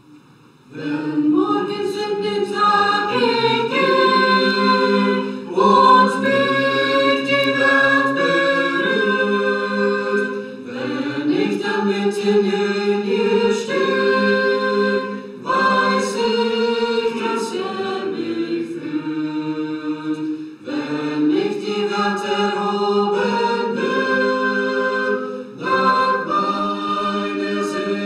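Small mixed vocal ensemble of men and women singing a hymn a cappella in parts, in phrases of about five seconds with a short breath between each.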